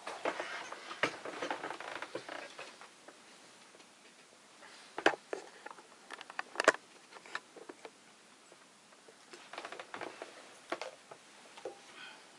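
Hands feeling over a small sculpture: light rustling and scattered ticks and taps, busiest in the first few seconds, with two sharper clicks about five and nearly seven seconds in and a few more ticks near the end.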